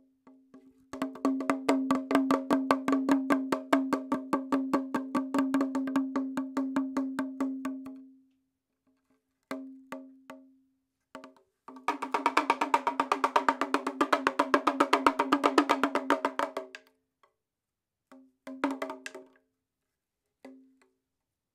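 Background music: fast wood-block-like percussion over a steady low note, breaking off and starting again several times.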